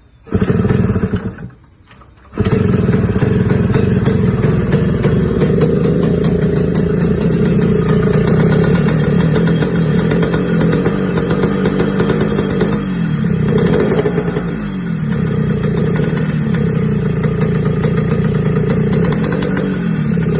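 Yamaha RX-King two-stroke motorcycle engine starting: a short burst, a brief dip, then it catches and runs steadily from about two seconds in with a light snoring ('ngorok') exhaust note. Past the middle it is blipped and drops back twice.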